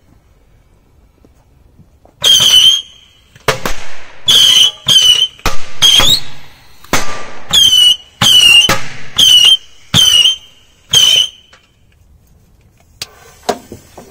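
Firecrackers going off inside a closed metal oven: about two seconds in, a rapid string of a dozen or so loud bangs starts, each with a short high squeal, and lasts about nine seconds. A few light clicks follow near the end.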